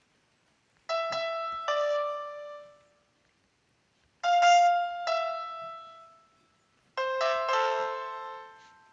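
Background music on a piano-like keyboard: three short phrases of a few struck notes each, every phrase left to ring and fade out, with short silences between.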